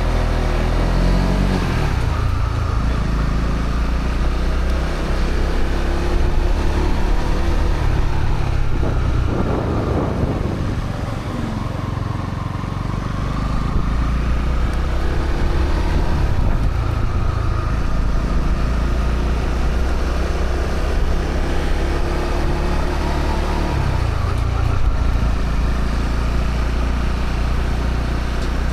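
Honda CB125R's 125 cc single-cylinder four-stroke engine through its stock exhaust on the move, the revs rising and falling with the throttle and gear changes. It eases off and goes quieter about ten seconds in, then picks up again.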